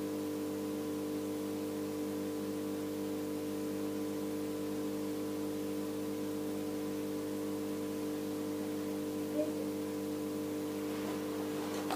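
Steady electrical hum with several held tones from running aquarium equipment, such as the air pump feeding the bubble stream.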